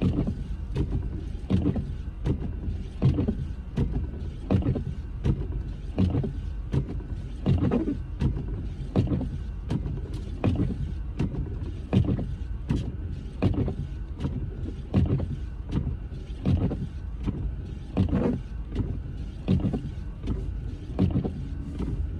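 Car driving through snow, heard from inside the cabin: a steady low rumble of engine and road noise with a regular short thump a little more than once a second.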